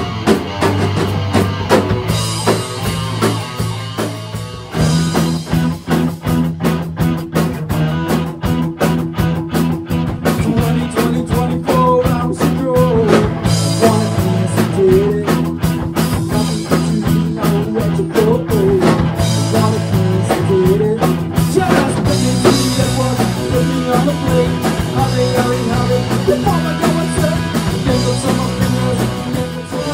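Rock cover band playing: electric guitar, bass and drum kit, sparser at first, with the full band coming in at a fast, even beat about five seconds in.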